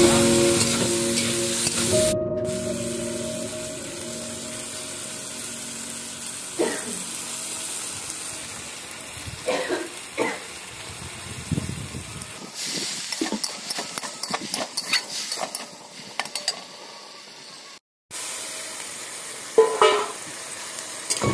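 Potatoes and vegetables frying in oil in a metal kadai with a steady sizzle, while a metal spatula scrapes and knocks against the pan again and again. Background music plays for the first couple of seconds and comes back at the very end.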